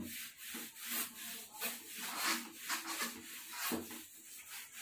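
A whiteboard being wiped clean of marker drawing: quick, repeated scratchy rubbing strokes, about three a second, starting suddenly.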